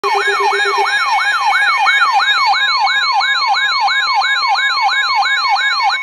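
NOAA weather radio alert siren warbling rapidly up and down, about two and a half sweeps a second, with a higher beeping tone behind it and a few lower beeps in the first second. It is the radio's alarm for a received severe thunderstorm warning.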